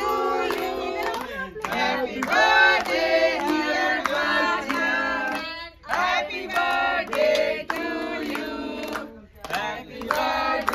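Voices singing a song together in short phrases, female voices among them.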